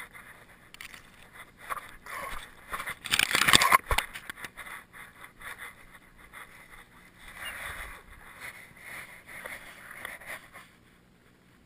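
A dog sniffing and nosing at the camera, its nose and fur rubbing and scraping against it in irregular bursts, loudest about three seconds in. The sound stops shortly before the end.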